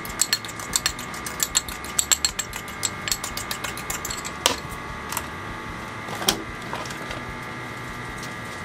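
Metal spoon clinking and scraping against a ceramic bowl while stirring a dry cornstarch, garlic powder, salt and pepper coating: quick clicks, several a second, for the first four seconds or so, then a few scattered louder knocks. A faint steady hum runs underneath.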